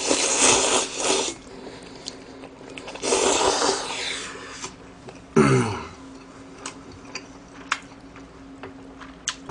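Someone slurping Neoguri instant ramen noodles: two loud, hissy slurps, one at the start and one about three seconds in. A short hum comes about five seconds in, followed by quieter chewing with small mouth clicks.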